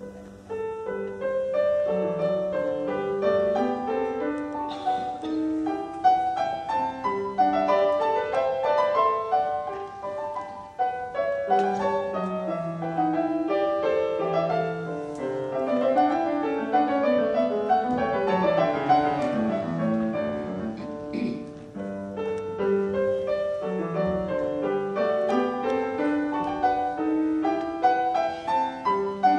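Grand piano playing classical music live: a busy passage of quick notes with sweeping runs up and down the keyboard, coming in softly and swelling within the first second.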